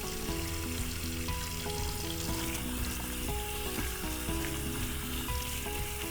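Tap water running steadily into a sink while hands are scrubbed, over background music with a simple melody.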